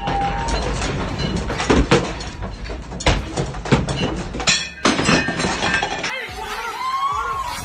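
A rapid run of crashes and knocks over a steady rushing noise, with sounds like things breaking.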